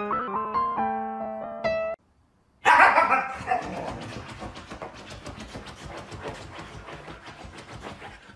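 Piano music that cuts off about two seconds in. Then a husky gives a short, wavering bark-howl and scratches rapidly at a fabric cushion with its paws.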